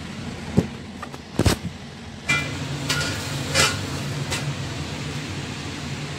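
Stainless-steel wok and lid clanking as they are handled and the lid is set on the wok: about six knocks in the first four seconds, the loudest about one and a half seconds in, two with a short metallic ring. A steady low hum runs underneath.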